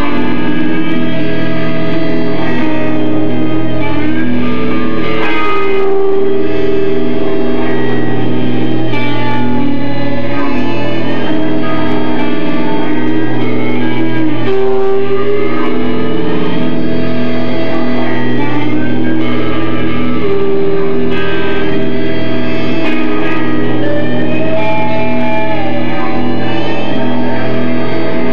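Live band music: guitar played through effects pedals with echo, over steady sustained low notes. It plays continuously and loud, with long held notes.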